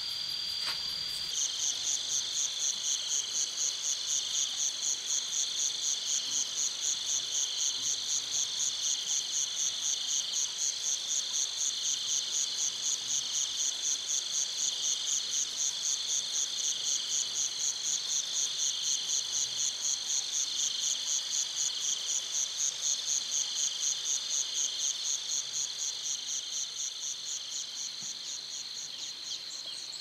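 Chorus of calling insects, crickets among them: a loud, rapidly pulsing high trill starts about a second in and fades near the end, over steadier lower insect calls.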